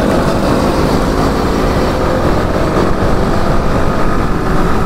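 Motorcycles running at speed on the road, their engine note faint under a steady rush of wind on the microphone.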